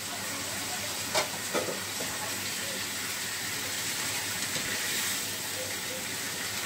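Spiced chickpeas and boiled potato cubes sizzling in a non-stick frying pan while a wooden spoon stirs them, with two sharp knocks about a second in.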